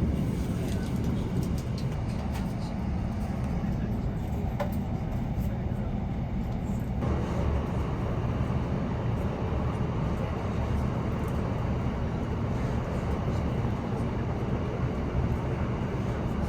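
Steady low rumble of a moving passenger train heard from inside the carriage, with a few faint clicks; the noise grows brighter about seven seconds in.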